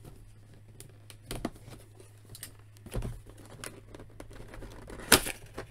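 Cardboard toy box being handled and opened: scattered scrapes, taps and crinkles of the cardboard and its end flap, with a louder snap about five seconds in.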